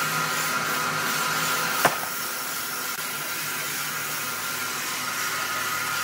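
Large horizontal band sawmill running with a steady whir and a constant whine over a hiss, with one sharp knock a little under two seconds in.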